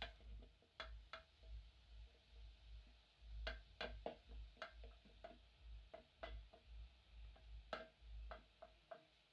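A spoon knocking and scraping against a metal cooking pot as chopped sukuma wiki greens are stirred: irregular light clicks, each with a short ring from the pot.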